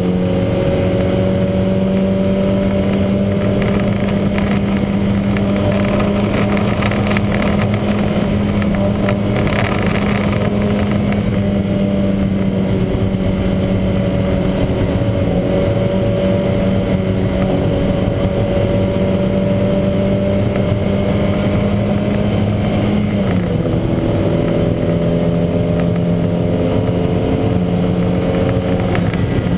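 Lancia Montecarlo race car's 2.0-litre twin-cam four-cylinder engine running hard under load, its note holding nearly steady and slowly rising, then dropping suddenly near the end as the revs fall. The engine has a huge misfire.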